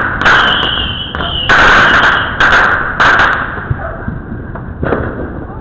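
Fireworks going off in a quick series of loud bangs, several in the first three seconds with a sizzling tail after each, then dying down to a quieter stretch with one lighter bang near the end.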